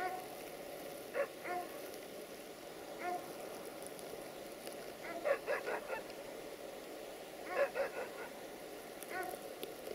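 Geese honking: short pitched honks, some single and some in quick runs of four or five.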